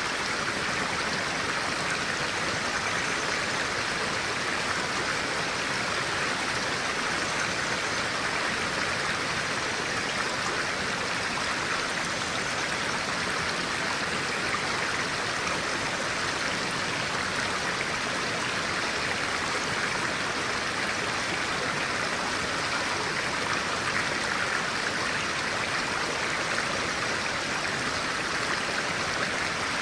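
Clear-water stream flowing, a steady even rush of water.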